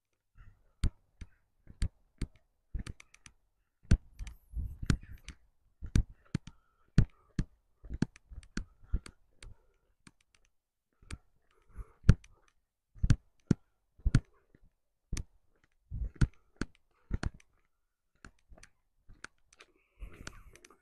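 Footsteps on a cobbled stone path: a run of sharp, irregular clicks and taps, about two a second.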